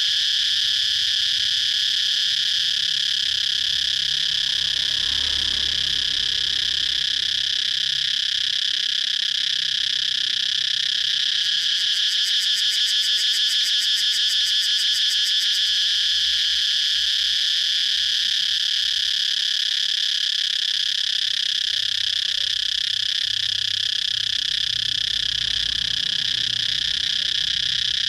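Cicadas buzzing: one continuous, steady high-pitched drone, with a faint rapid pulsing in the middle.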